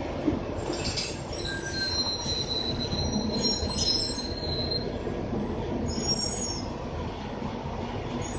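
Steady low rumble inside a moving RTS city bus, with thin, high metallic squeals over it from about two to five seconds in and again briefly near six seconds.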